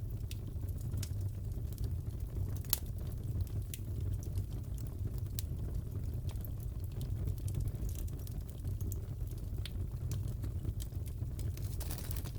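Crackling fireplace: a steady low rumble with scattered sharp crackles and pops, a few every second.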